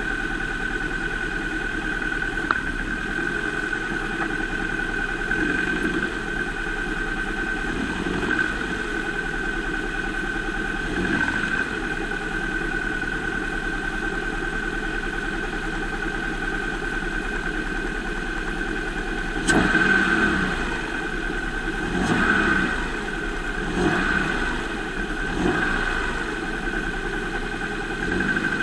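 2005 Volvo S40 engine idling steadily, with a run of short thumps about two seconds apart in the second half; the owner presents the car as having a bad engine mount.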